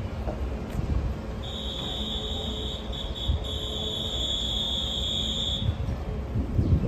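A high, steady warning tone sounds for about four seconds with a brief stutter partway through, signalling a train approaching the platform. A low rumble of wind and station noise runs underneath.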